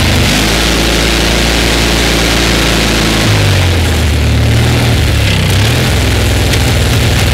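The 20 hp Kohler Magnum air-cooled twin-cylinder engine of a Simplicity Sunstar garden tractor running, its note steady at first and then dropping and wavering in speed about three seconds in. It is running on old oil with a carburetor not yet cleaned out.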